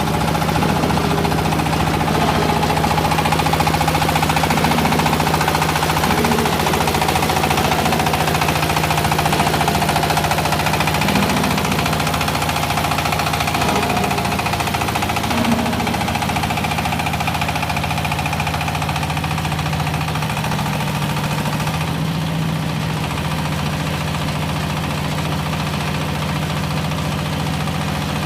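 Hydraulic scrap metal baler running, its motor and hydraulic pump producing a steady hum with a constant low tone. The sound eases slightly a bit over three-quarters of the way through.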